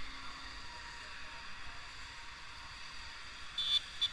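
Steady hiss of road traffic, with a short, sharper sound near the end.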